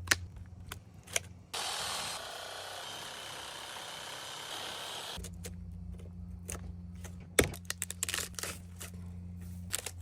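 Sharp metallic clinks and knocks of scrap metal being handled, over a low steady hum. From about a second and a half in, a loud hissing, whirring noise runs for nearly four seconds and then stops.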